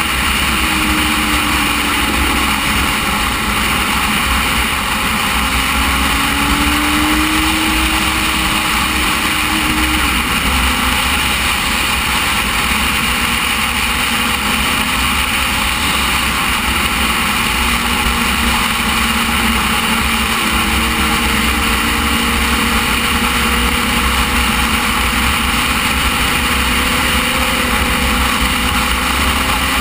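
Motorcycle riding at road speed: steady wind rush over the microphone, with the engine's note underneath rising and falling a few times with the throttle.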